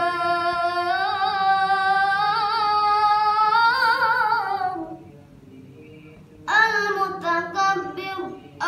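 A child's voice reciting the Quran in melodic tilawah style. It holds one long ornamented note with a wavering pitch until about five seconds in, pauses briefly, then begins a new run of shorter melodic phrases.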